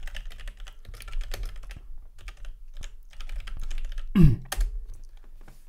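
Typing on a computer keyboard: a quick run of key clicks while a short prompt is typed. About four seconds in comes a brief, louder sound falling in pitch, then a few last keystrokes.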